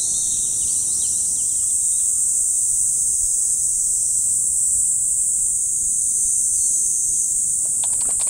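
Steady, high-pitched drone of a summer insect chorus, with a few bird chirps in the first second or so.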